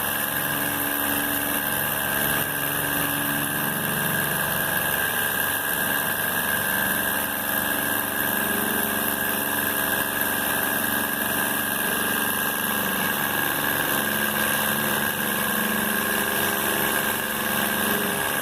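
A machine running steadily with an unchanging whine and hum.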